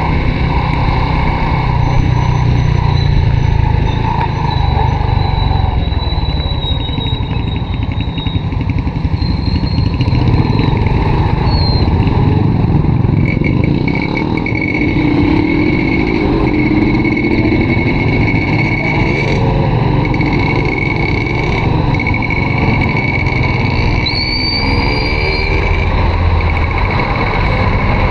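Honda RSX 110 underbone motorcycle's small single-cylinder four-stroke engine running steadily while riding, with continuous road and wind noise.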